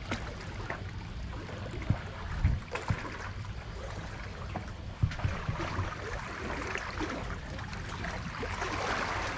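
Sea water washing and trickling among concrete breakwater tetrapods, with a few short knocks and low thumps.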